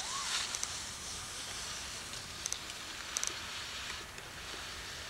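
Steady outdoor hiss with a few faint, sharp high clicks: no distinct sound source stands out.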